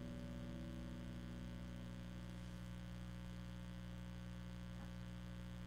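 Faint, steady mains hum, a low tone with a stack of its overtones, from a hi-fi playback chain built around a PX25 valve amplifier, with no music playing.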